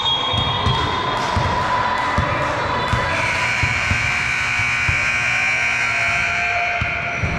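A basketball bouncing on a gym floor: irregular dull thumps, one or two a second, with steady high tones held above them.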